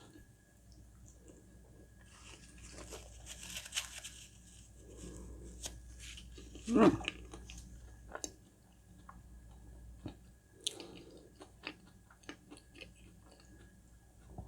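A person chewing rose petals close to the microphone, with soft crunches, wet mouth clicks and smacks. About seven seconds in there is a brief hummed "mm".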